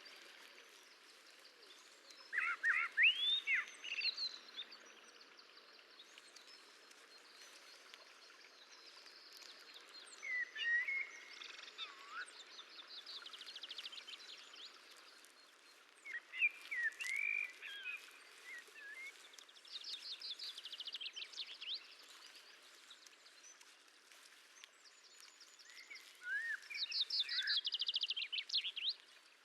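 Bird calls and chirps in bouts every few seconds, some as fast trills, over a steady faint hiss of outdoor ambience.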